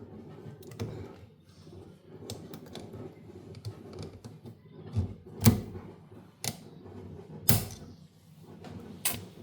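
Scattered clicks and knocks of washing-machine parts being handled and worked with hand tools during reassembly. A few sharper knocks fall in the second half.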